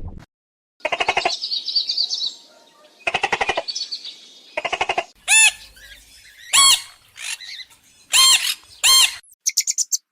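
Animal calls: three rapid trains of pulses, then four short squawks that rise and fall in pitch, and a quick burst of pulses near the end.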